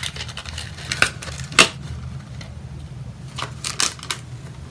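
Small package being handled and opened by hand: a few sharp crinkles and clicks, the loudest about a second and a half in and a quick run of them a little before the end, over a low steady hum.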